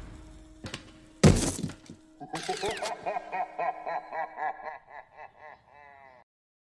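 Cartoon sound effects: a sharp click, then a loud crash-like impact about a second in, followed by a rhythmic run of wavering pitched tones, about four a second, that fades out.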